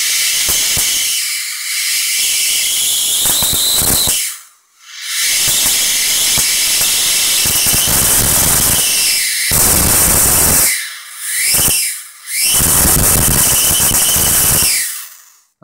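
High-voltage arc from a Fujitsu E155 CRT monitor's flyback transformer, burning as a blue plasma arc: a loud, steady hiss. It cuts out for a moment about four seconds in and twice more briefly later on, each time starting again, and stops near the end.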